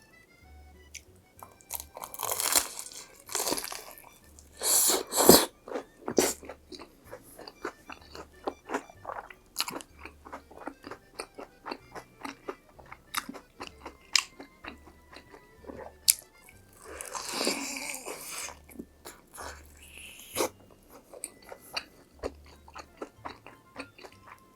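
Close-miked eating of crispy fried food: a few loud crunching bites and, between them, steady crunchy chewing, about two or three chews a second. Quiet background music with an even beat runs underneath.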